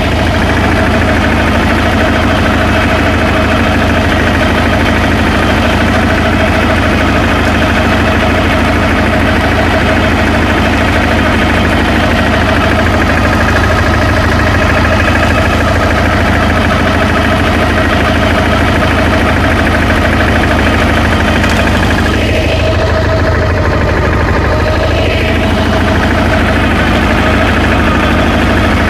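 14 hp Nibbi MAK 17 walking tractor running steadily under load, driving a Belloni MTP 700 flail shredder that cuts through lawn grass.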